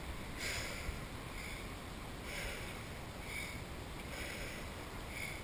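A freediver's heavy recovery breathing right after a long breath-hold swim: about three slow breath cycles, each a fuller inhale followed by a softer exhale.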